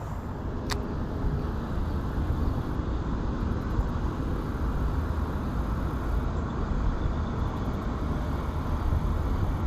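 Steady low rumbling outdoor background noise with no distinct events, apart from a single sharp click about a second in.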